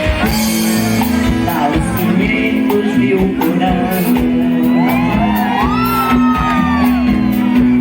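Live band music with a steady drum beat and a held bass note, and a singing voice that slides up and down in pitch about five to seven seconds in.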